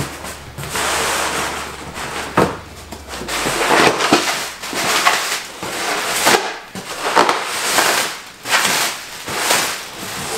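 Cardboard shipping carton and plastic air-pillow packing crinkling, rustling and scraping as an inner guitar box is pulled out of it, with many irregular sharp crackles.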